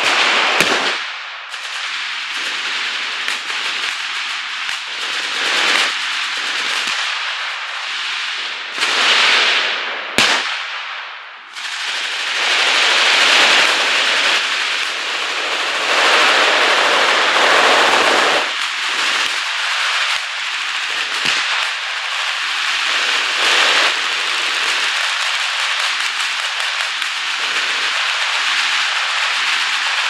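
Massed automatic gunfire: many machine guns firing at once in dense, near-continuous rapid shots that swell and ease, with one sharper bang about ten seconds in.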